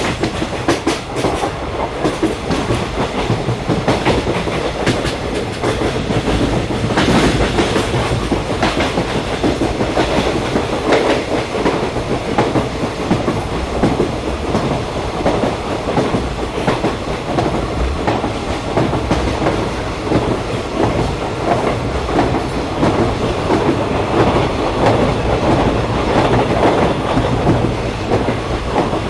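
Passenger train running along the track, heard from on board: a continuous rumble of wheels on rails, with dense small clicks and rattles throughout.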